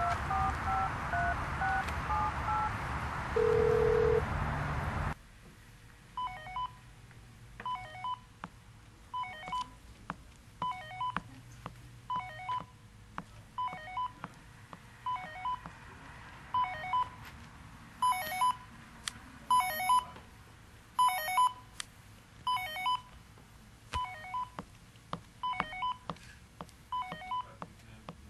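A telephone keypad being dialed: a quick run of about eight touch-tone beeps over steady street noise, then a short lower tone. After a cut, a telephone ringing in repeated double rings, one pair about every second and a half, the call coming through.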